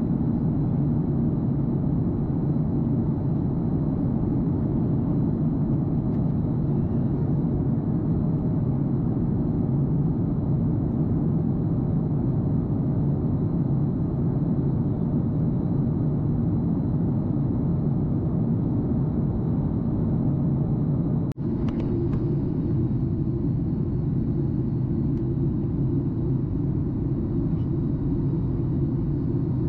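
Steady in-flight cabin noise of a Boeing 737 MAX 8, heard from a window seat over the wing: a low rumble of its CFM LEAP-1B engines and airflow, with a faint high steady tone. It breaks off for an instant about two-thirds of the way through and resumes slightly duller.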